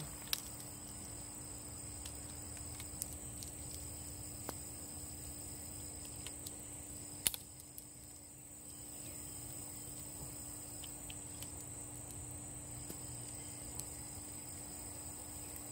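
Steady chorus of insects: one continuous high buzz and a lower trill that starts and stops every few seconds. A few small clicks from BB shells being loaded into a CO2 revolver, the sharpest about seven seconds in.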